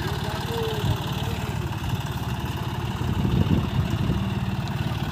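John Deere tractor's diesel engine running steadily at a low, even pulse while it powers the hydraulic crane lifting a load.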